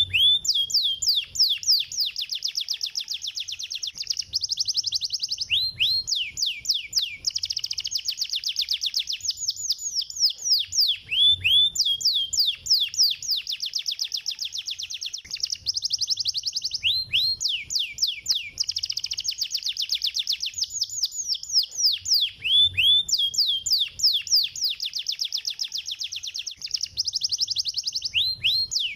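Domestic canary singing fast, tight trills of rapidly repeated down-slurred notes, high-pitched, with short pauses between phrases; the same song pattern recurs about every six seconds.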